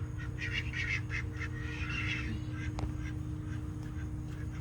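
Ducks quacking nearby, a run of short repeated calls.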